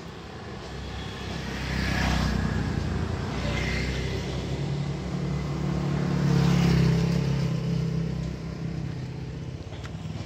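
Motor vehicles passing on the street, their engines swelling and fading: one pass about two seconds in and a louder one around six to seven seconds in.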